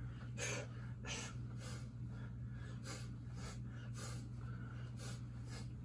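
Short, sharp breaths forced out through the nose and mouth in time with the punches of a shadowboxing combination, about two a second, faint, over a steady low hum.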